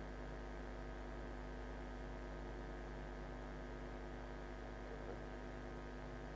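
Steady electrical mains hum, made of many steady tones that do not change.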